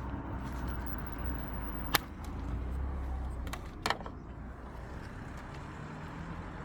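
Sharp plastic clicks of the Renault Mégane's magnetic engine-speed sensor connector being unplugged: one click about two seconds in and a quick pair near four seconds, over a steady low rumble.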